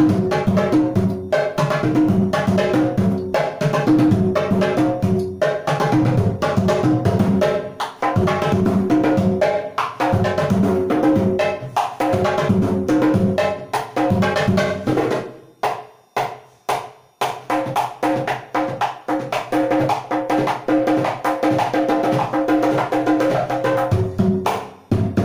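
Hand drumming on a triple drum, a set of three conga-style drums: fast runs of open and slapped strokes on the three differently pitched heads. For a couple of seconds a little past the middle the strokes thin out to a few spaced hits before the fast playing resumes.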